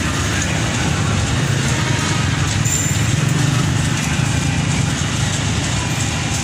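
KRL commuter electric train at the platform, running with a steady low rumble.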